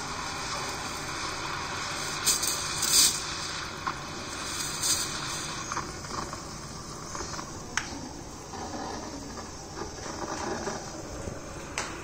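Morphy Richards espresso coffee maker brewing into the cup: a steady hiss with two short, sharper spurts of hissing steam, dying down after about six seconds, then a few light clicks.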